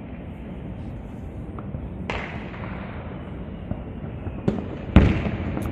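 Aerial fireworks from a Pirotecnia Zaragozana castillo display: a steady rumbling background of distant bursts. There is a sharp bang about two seconds in, then a cluster of louder bangs near the end, the loudest about five seconds in.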